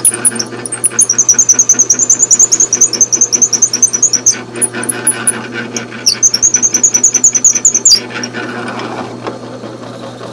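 Drill press running, with its long 7 mm brad point bit boring through a wooden blank and giving a fast, rhythmic high-pitched squeak several times a second. The squeaking stops about eight seconds in, leaving the steady motor hum.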